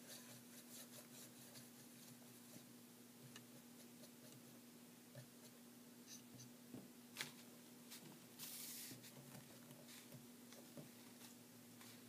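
Near silence with the faint small taps and scratches of paintbrushes against a water cup and paint palette, and a short soft rustle about two-thirds of the way in, like tissue paper being handled. A faint steady hum sits underneath.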